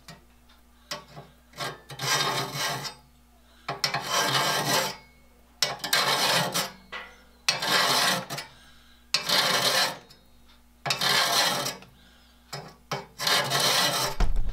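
A saw file rasping across the teeth of a crosscut pruning saw, sharpening the points: seven steady strokes of about a second each, one every one and a half to two seconds, with light clicks between strokes. A brief low knock right at the end.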